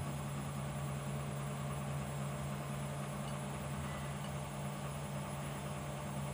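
A steady low hum with a faint hiss.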